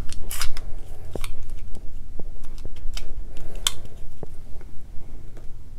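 Sig Sauer 1911-22 pistol worked by hand: a string of short, sharp metallic clicks and scrapes from its slide and parts, spaced irregularly, over a low steady hum.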